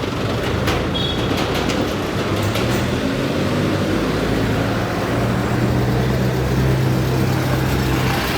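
Street traffic noise, with a motor vehicle's engine running nearby as a steady low hum from about two seconds in.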